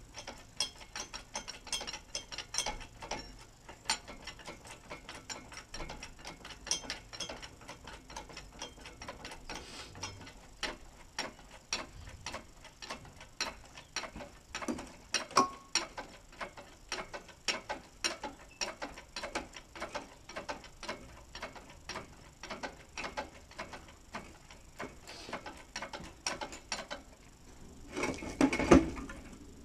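Hydraulic engine crane being pumped by hand, its pump and handle clicking steadily a few times a second as the boom lifts a chassis. A louder clatter near the end.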